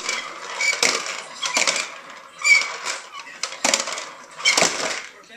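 Toy push popper rolled back and forth over a foam mat, its plastic balls popping and clattering inside the clear dome in five bursts about a second apart.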